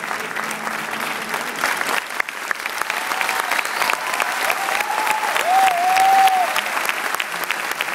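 Theatre audience applauding a choir, with many hands clapping densely. From about three seconds in, a drawn-out high tone that wavers in pitch rises above the clapping for a few seconds.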